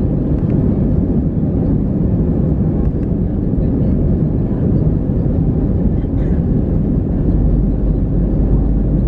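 Cabin noise inside an Airbus A320-214 moving on the ground: a steady low rumble of its CFM56 engines and the wheels rolling over the pavement.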